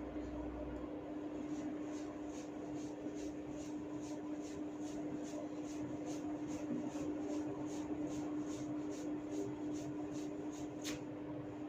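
Hair cracking: a rapid, even series of small crackling clicks, about three a second, as tufts of hair are tugged at the scalp, with one sharper snap near the end. A steady low hum runs underneath.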